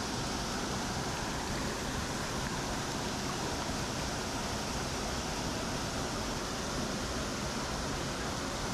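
Steady rushing of a waterfall and its stream, an even hiss with no breaks.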